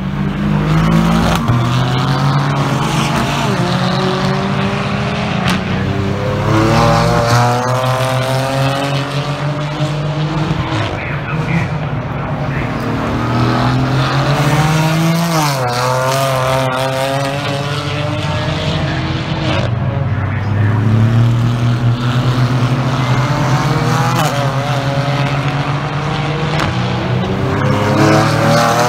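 GT4 racing cars passing one after another at race speed, engines revving hard and changing gear, the pitch rising and falling as each goes by. There are several louder passes, with a clear run of upshifts about halfway through.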